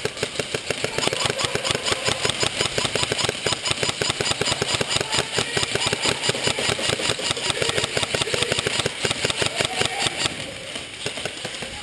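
Airsoft electric rifle firing on full auto in one long continuous burst, a rapid, even rattle of shots that stops about ten seconds in.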